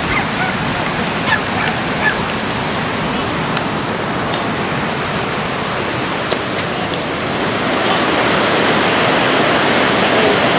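Ocean surf breaking on the beach, a steady rushing wash of waves that swells a little near the end.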